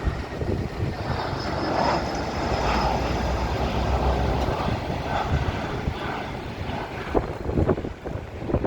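Airbus A320 jet airliner passing, its engine roar swelling after about a second and easing off toward the end, with a faint high whine near the start of the swell.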